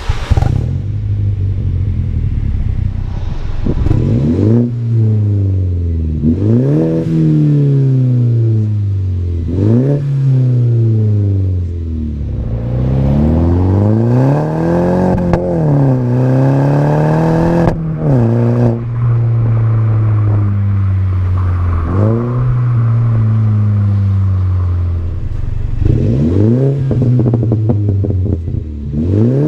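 Mini Cooper S F56's 2.0-litre turbocharged four-cylinder, straight out through an exhaust with the rear muffler removed, revved again and again. There are quick blips and a few longer pulls, and the engine drops back to a steady idle between them.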